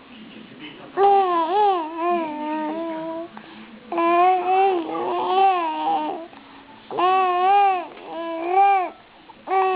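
A 3.5-month-old baby cooing contentedly in drawn-out, pitched vowel sounds that waver up and down, in about four bouts separated by short pauses.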